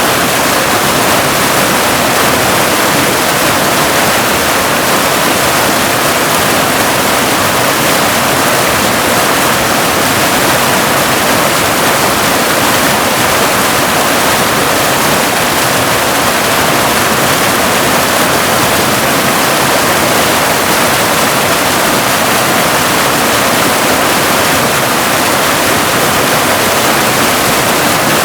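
Waterfall: water pouring in a loud, steady, unbroken rush.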